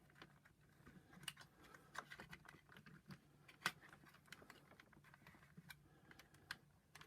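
Faint, irregular clicks and taps of wires and small plastic parts being pushed into place inside a vacuum cleaner's power nozzle housing.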